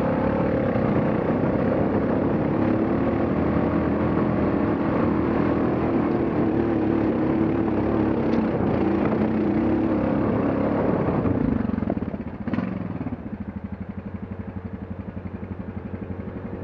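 ATV engine pulling steadily under load in second gear up a steep hill. About twelve seconds in it drops off, there is a single knock, and the engine settles to an even, pulsing idle.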